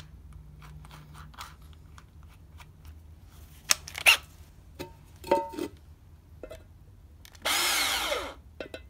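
A few knocks and clicks as a rusty tin can is handled and set in place. Near the end a cordless drill runs for about a second against the can's lid, its motor whine rising and then falling.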